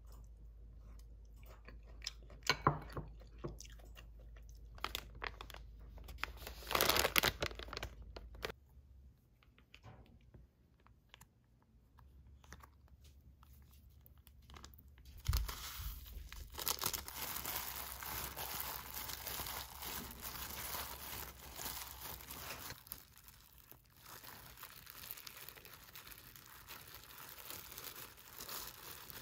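Close-up kitchen handling sounds: utensils clicking and scraping in a bowl of food. About halfway through, a seasoning sachet is torn open over rice, followed by continuous crinkling of disposable plastic gloves as rice is pressed into fried tofu pouches.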